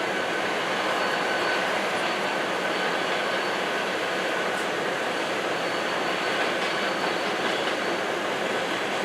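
Coal train cars rolling past on steel rails: a steady rushing rumble of wheels on track, with a faint, thin wheel squeal held steadily through it.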